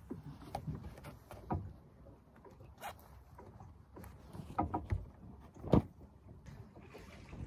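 Scattered rustling with light clicks and knocks, and one louder knock near the end.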